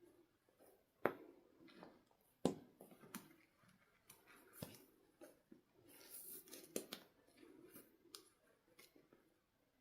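Faint, scattered clicks, taps and snips of hands handling toy packaging, with two sharper knocks about a second and two and a half seconds in.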